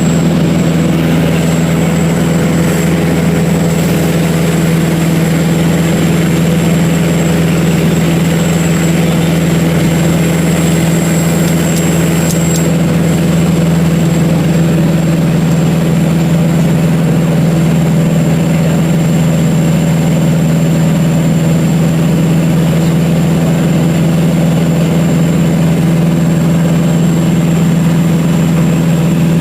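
Cessna 177RG Cardinal's four-cylinder Lycoming piston engine and propeller running at a steady, unchanging drone, with a thin steady high whine above it.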